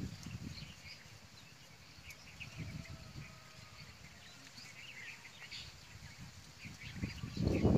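A tapper's knife working the bark at the top of a date palm trunk, with scraping strokes and knocks against the wood, loudest near the end.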